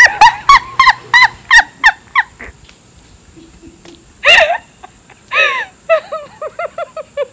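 A woman laughing hard: a quick run of high 'ha' bursts that trails off, and after a pause two longer whooping laughs and a fast string of short giggles.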